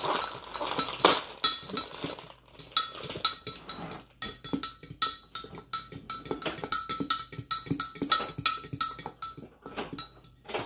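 A fork clinking against the inside of a glass Pyrex measuring cup as eggs and milk are whisked: a quick run of ringing clinks, about three or four a second.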